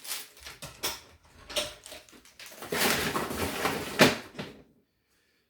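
Objects being handled: a string of short knocks and clatters, then a longer stretch of noisy handling from about two and a half seconds in, with one sharp knock, the loudest sound, around four seconds, after which it stops.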